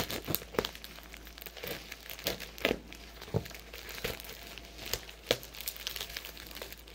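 Parcel packaging being handled and unwrapped: irregular crinkling and rustling with scattered sharp crackles and taps.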